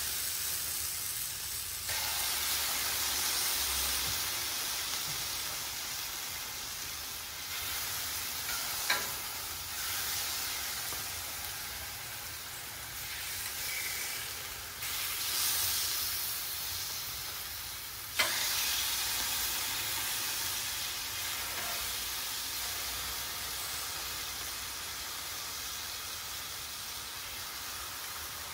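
Marinated chicken thighs sizzling in peanut oil on a hot Blackstone flat-top griddle. The sizzle steps up louder a few times as more pieces are laid on, and there are two sharp clicks, one about a third of the way in and one past the middle.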